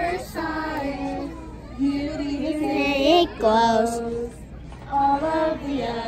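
Singing by a child's voice and a woman's voice, in phrases of long, held notes that glide in pitch.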